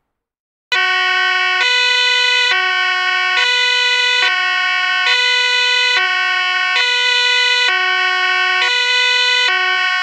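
European two-tone ambulance siren, switching back and forth between a low and a high note about once a second at a steady level. It starts abruptly just under a second in.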